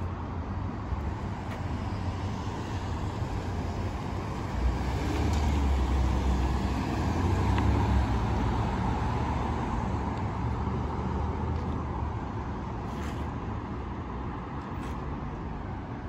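Steady city road traffic, with one car driving past close by: its low tyre-and-engine rumble swells about midway, peaks, then fades off.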